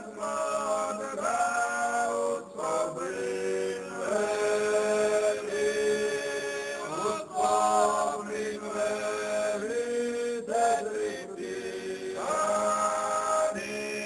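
Background music: voices singing a chant in long held notes over a steady low drone.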